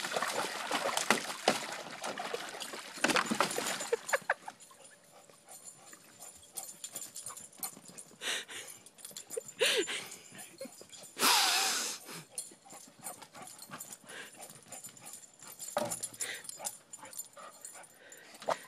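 Water splashing and sloshing as a yellow Labrador puppy paws and steps about in a plastic kiddie pool, busy for the first few seconds, then sparse splashes. About eleven seconds in the puppy gives one short vocal sound, falling in pitch.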